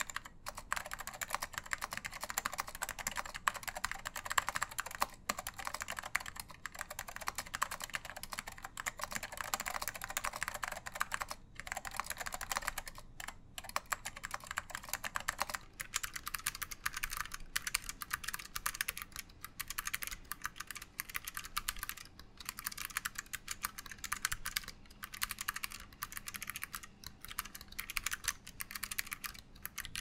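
Continuous fast typing on tactile mechanical keyboards. First comes a beige vintage Apple keyboard. About halfway through it switches to a second, white-cased board whose keystrokes sound thinner, with less depth.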